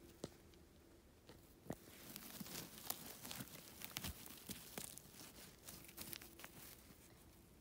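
Faint crackling and rustling of dry pine needles and moss, in scattered small clicks, as a hand reaches in and picks a bay bolete mushroom from the forest floor.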